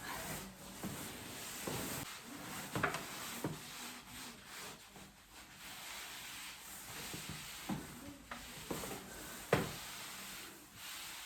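Fiberglass wall covering being rubbed and smoothed down against the glued wall at a freshly cut seam: irregular rustling strokes, with a few sharper scrapes about three seconds in and near the end.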